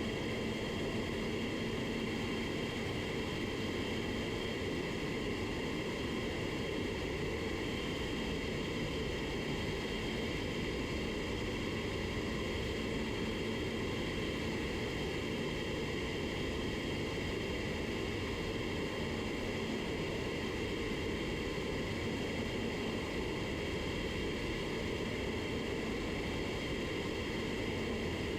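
Steady rush of air in an automotive paint spray booth, an even hiss with a faint low hum that does not change.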